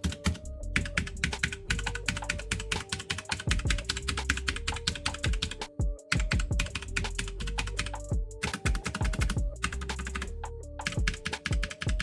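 Rapid typing on a Logitech G512 mechanical keyboard with GX Brown tactile switches: a dense run of key clacks, pausing briefly twice. Background music with a simple melody plays underneath.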